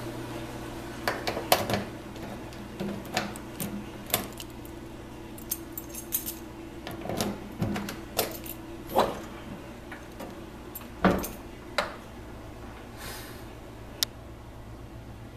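Keys jangling, with scattered sharp metal clicks and clanks, over a steady low hum.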